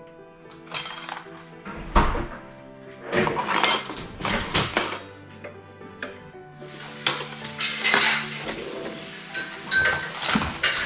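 Dishes and cutlery clinking and clattering as they are handled, in irregular bursts of several knocks each. Background music plays steadily underneath.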